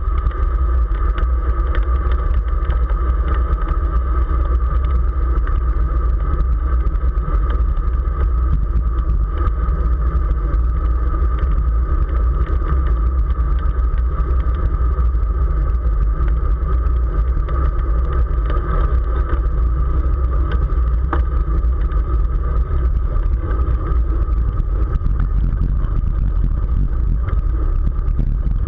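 Strong wind buffeting the microphone of a camera riding on a road bike at race speed: a steady, heavy low rumble with a constant higher hum above it.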